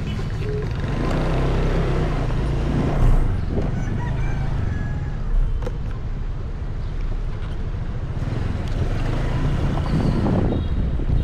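Street traffic: vehicle engines running with a steady low rumble and road noise, with two brief louder knocks about three and five seconds in.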